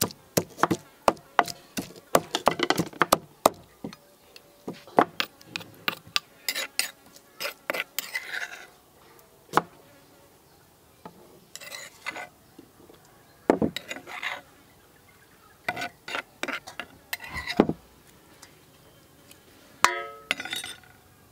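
Wooden pestle pounding chilies and garlic in a wooden mortar, a quick run of dull knocks. The knocks then thin out as a metal spoon scrapes the chili paste from the mortar and taps it off against an aluminium bowl.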